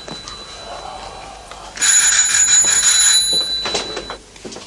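Telephone ringing: one ring of nearly two seconds, starting about two seconds in. A few clicks follow near the end.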